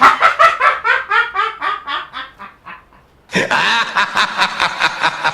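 Exaggerated laughter: rapid "ha-ha" pulses that trail off over about three seconds, then a second, louder burst of laughter starting just past three seconds in.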